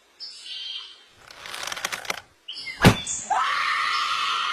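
A sharp knock, then a long, high scream that rises at its start and is held for over a second.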